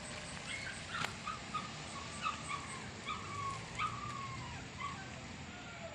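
A dog whimpering: a string of short, high whines, each falling in pitch, about two a second. A sharp click comes about a second in.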